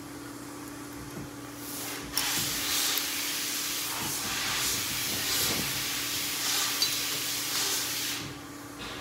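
A steady hiss that starts about two seconds in and cuts off sharply near the end, over a faint steady hum.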